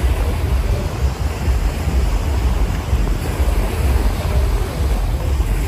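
Wind buffeting the microphone in gusts, over a steady wash of ocean surf.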